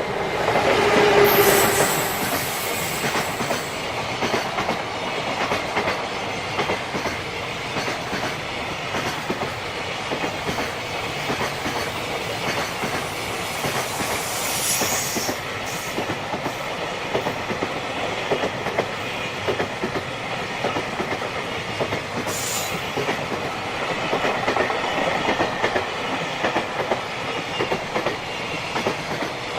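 A JR Freight train running past at speed. The locomotive passes loudest near the start, then a long string of freight wagons clatters steadily over the rail joints, with a couple of brief high wheel squeals partway through.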